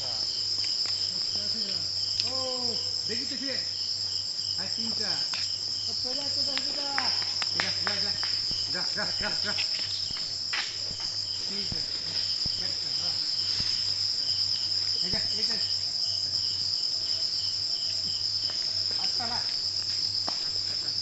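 Steady high-pitched insect chorus, with a softer chirp repeating about twice a second and faint scattered calls lower down.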